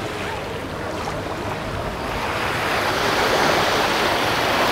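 Sea waves washing onto a beach, the surf swelling louder about two seconds in as a wave breaks.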